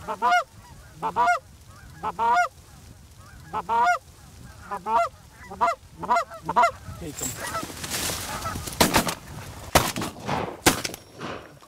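Snow goose calls, a honk repeated about once a second, then near the end a volley of shotgun blasts, several sharp bangs about a second apart.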